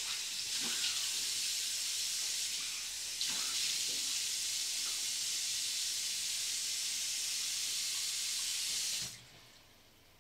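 Running water, a steady hiss that stops abruptly about nine seconds in.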